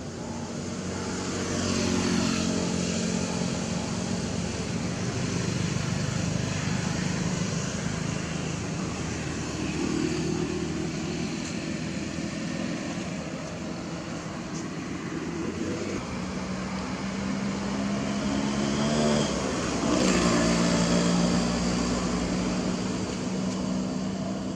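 Motor vehicle engines running nearby, their pitch rising and falling as they pass, over a steady background hum.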